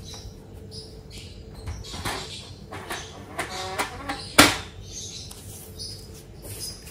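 Cylindrical filter being pulled out of a tower air purifier's plastic housing: scattered plastic clicks and rubbing, a short squeak as it slides free, and one sharp knock about four and a half seconds in.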